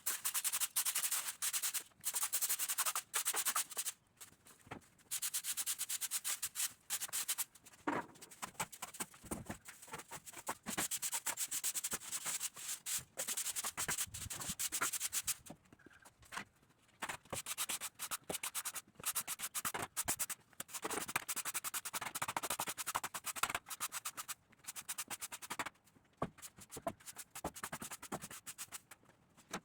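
A broom sweeping, its bristles scraping over the floor in a long run of irregular strokes with short pauses between.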